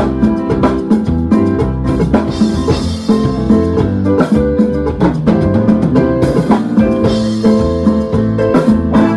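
Music with a full drum kit, bass and guitar playing at a steady beat.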